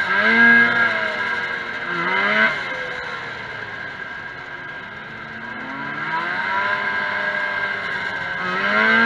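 Vintage 340 cc two-stroke racing snowmobile engine heard from on board, revving hard and easing off as it races. The pitch climbs sharply near the start and again about two seconds in, sags through the middle, then climbs once more from about six seconds to near the end.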